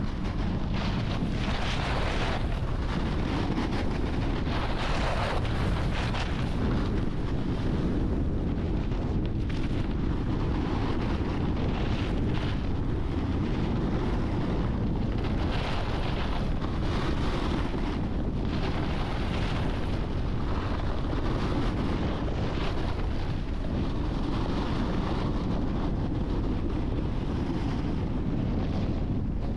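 Wind rushing over the microphone of a snowboarder riding downhill, a steady low buffeting, with the hiss of the snowboard sliding and scraping over the snow swelling and fading every second or two.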